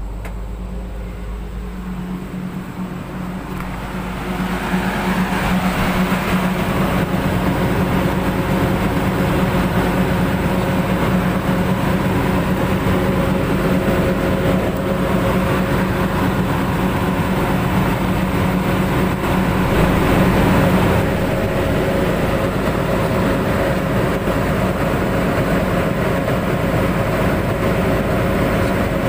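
Excavator's diesel engine running steadily, growing louder about four seconds in.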